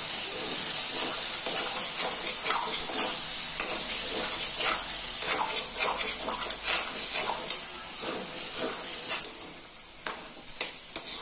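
Metal spatula stirring and scraping bottle gourd and chana dal around a metal kadhai, in a run of quick scrapes over a steady sizzle. The sizzle and scraping ease off about nine seconds in.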